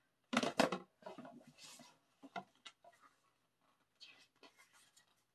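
Paper handling: an album photobook is picked up and its glossy pages are turned, giving soft rustles and light taps. A short louder burst comes about half a second in.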